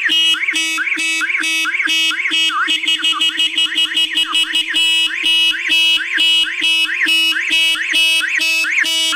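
A 12-volt electronic siren sweeps rapidly up and down, about two to three sweeps a second, over a 12-volt car horn sounding a steady, buzzy note with brief breaks. Both are switched through relays and run off a battery.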